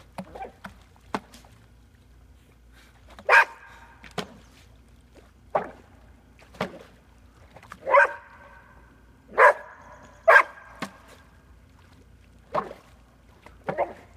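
A dog barking at a duck decoy, in single barks at uneven intervals, the loudest about three seconds in and several more between eight and ten and a half seconds in.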